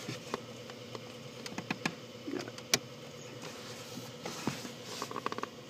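Scattered small clicks and taps of hands working at the plastic under-dash panel and connectors around a car's OBD2 port, with a quick run of clicks near the end. A faint steady hum lies underneath.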